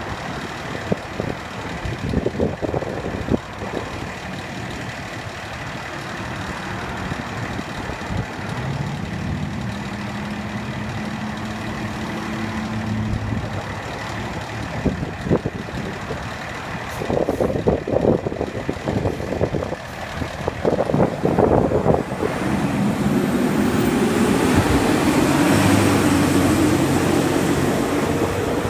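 Fire department quint (aerial ladder truck) running its diesel engine: it runs at idle, then grows louder with a rising engine note in the last few seconds as the truck pulls away.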